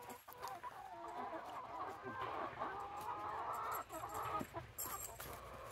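A flock of hens clucking and chattering, several birds calling over one another at once.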